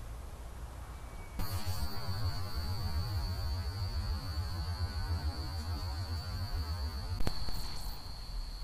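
Night-mode trail camera recording its own electronic noise: a steady high-pitched whine over a low hum that start suddenly about a second and a half in. A single sharp click comes about seven seconds in, after which the low hum fades and the whine carries on.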